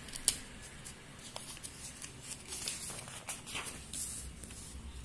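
Sheets of paper being handled and shifted, with light rustling and scattered small clicks, and a sharp tap about a third of a second in.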